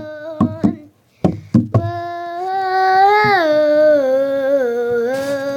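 A girl singing unaccompanied, holding long wordless vowels that slide up and down in pitch. There are a few short taps in the first second and a half and a brief pause about a second in.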